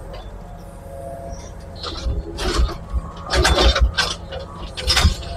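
Excavator engine running while its bucket scrapes and clanks through broken concrete and brick rubble. There are bursts of clattering about two seconds in, again around three and a half seconds, and once more near the end.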